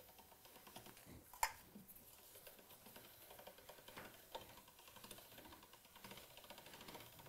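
Hand-cranked pasta machine with its crank and rollers turning, giving a faint rapid clicking as a sheet of pasta dough is rolled thinner. A sharper click comes about a second and a half in.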